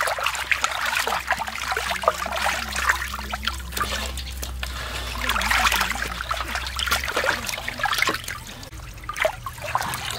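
Water splashing and sloshing in a metal basin as hands scrub and turn raw chicken pieces, with irregular splashes and drips.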